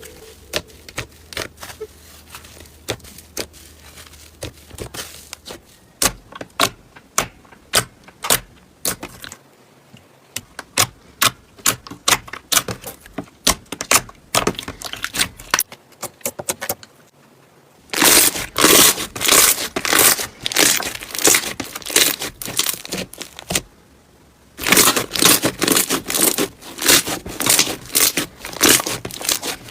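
Slime being pressed and worked by hand, giving a run of sharp pops and clicks. The clicks come singly at first; about two-thirds of the way through they thicken into dense crackling, break off briefly, then crackle densely again near the end.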